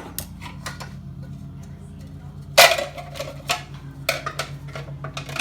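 Kitchen clatter of knocks and clicks as watermelon chunks are handled and loaded into a food processor bowl, the loudest knock about two and a half seconds in, over a steady low hum.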